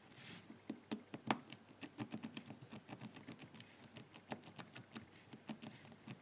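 Rapid, irregular small clicks of a four-wheel combination padlock's number wheels being turned notch by notch while the shackle is tensioned, as each wheel is probed for its gate by how much it binds.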